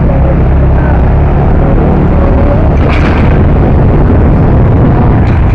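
Motorcycle on the move: a loud, constant low rumble of wind buffeting the microphone, with the bike's engine running underneath.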